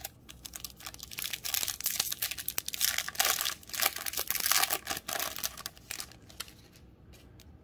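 Foil wrapper of a baseball card pack being torn open and crinkled: a dense crackling that is loudest around the middle and dies away about six seconds in, leaving a few faint ticks.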